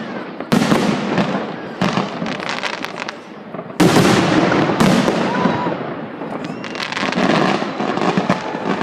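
Fireworks salute bursting overhead: three big bangs, about half a second, two seconds and four seconds in, each followed by a long crackling wash, with many smaller cracks between them.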